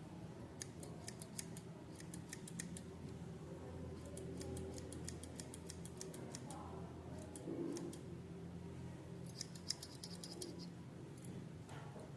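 Restored garden shears worked open and shut, the blades snipping in short runs of quick sharp clicks, about six runs in all. A steady low hum sits underneath.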